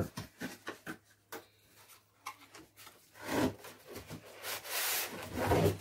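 Cardboard box being opened by hand: a few small clicks as the flap comes free, then cardboard rubbing and scraping as the inner packaging slides out, loudest near the end.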